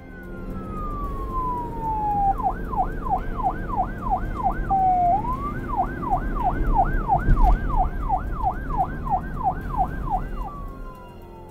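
Police siren: a long falling wail, then a fast yelp cycling up and down about three to four times a second, with a short rising glide partway through, and a falling wail again near the end. A low rumble runs underneath.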